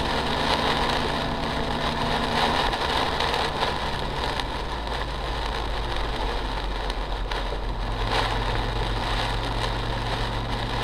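Car driving on a wet highway in heavy rain, heard from inside the cabin: a steady low engine hum under constant hiss of tyres on the wet road and rain on the car.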